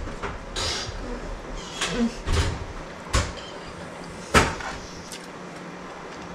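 Several short, separate household knocks and clacks spread over a few seconds, the loudest about four and a half seconds in, with a brief rustle near the start.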